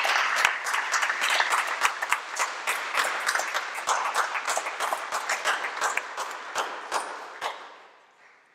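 Congregation applauding with many hands clapping, the applause dying away near the end.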